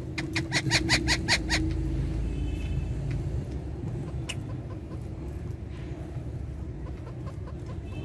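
Ringneck parakeet calling in a quick run of about eight short, sharp chirps over the first second and a half. A few faint chirps and ticks follow over a steady low background rumble.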